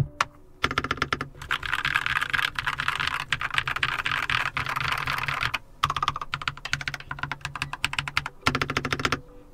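Fast typing on a Keychron mechanical keyboard: a rapid clatter of key presses in three runs, with short breaks about five and eight seconds in.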